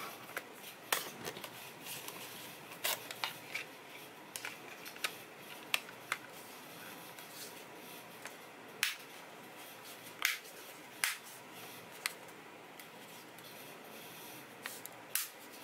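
Plastic clicks and rubbing as a battery is seated in a JioFi JMR540 pocket hotspot and its plastic back cover is pressed and snapped into place. About eight sharp clicks come a second or two apart, with soft handling noise between them.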